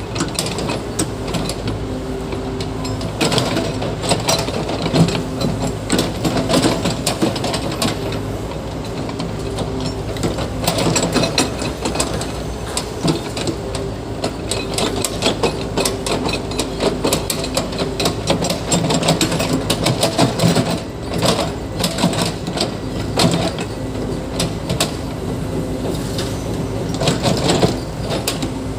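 A tracked construction machine's diesel engine running steadily, with irregular metallic clanking and clattering on top.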